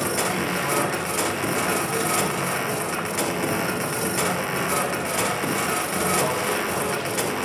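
Dense, gritty electronic noise music played through a sound system: a steady, even wash of crackling static that fills the whole range from low to high.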